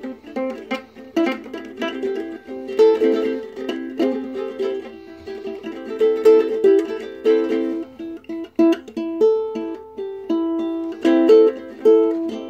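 Ukulele being played, plucked and strummed notes and chords in an irregular rhythm.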